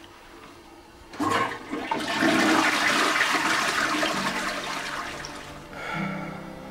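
Toilet flushing: a rush of water starts about a second in, swells, then dies away over a few seconds.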